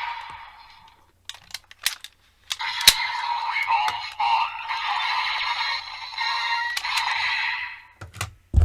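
Electronic Kamen Rider transformation-belt toy playing its music and announcer voice through its small speaker, preceded by a few sharp plastic clicks as a buckle is set into it. The earlier jingle fades out within the first second, and more clicks come near the end.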